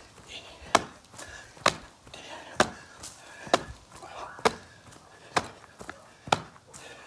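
A person doing jumping jacks, making a sharp smack about once a second in a steady rhythm, about eight in all.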